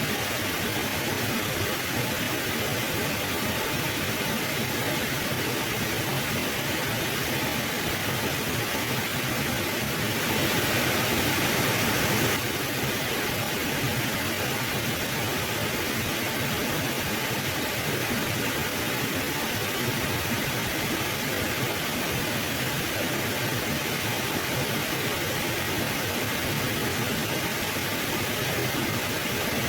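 Mountain river flowing, a steady rushing of water that swells louder for about two seconds around a third of the way in.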